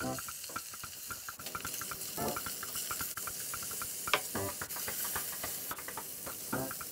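Pork belly frying in sesame oil in a stainless steel saucepan: a steady sizzle that starts as the meat goes in, with scattered light clicks as pieces are placed and moved.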